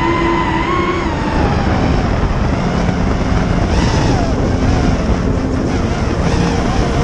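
Quadcopter drone's propellers whining, the pitch rising slightly and then dropping about a second in, over heavy wind noise on the microphone.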